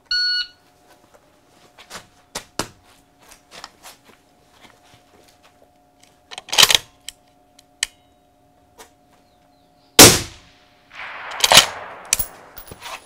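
A shot timer's short start beep, then clicks and knocks as a rifle is settled into position on a barricade. About ten seconds in comes a single suppressed rifle shot, the loudest sound, followed by more knocking and handling noise. The suppressed shot is too quiet for the shot timer to pick up.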